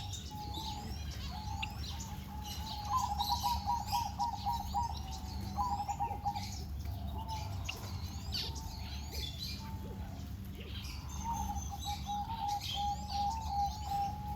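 A flock of captive birds chirping busily, with a lower call repeated in quick runs, over a steady low hum.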